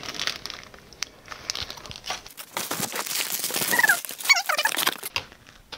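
Plastic packaging crinkling and rustling as supplies are handled and pulled from a cardboard box, loudest in the middle, with a couple of short squeaks around four seconds in.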